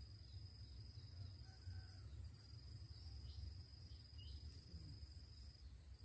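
Faint field ambience: an insect's steady high-pitched trill, broken briefly twice, over a low rumble, with a few short high chirps about halfway through.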